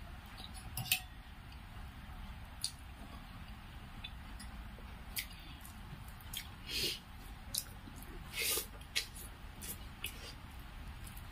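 Close-miked hand-eating of rice: irregular wet mouth smacks and clicks of chewing, with fingers squishing and mixing rice on a brass plate. A few longer, louder smacks come in the second half.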